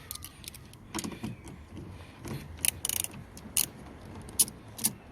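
Irregular sharp metallic clicks and clinks from a socket wrench working the 8 mm bolts of a car side-mirror mount. The loosened mirror and its hardware rattle in the door.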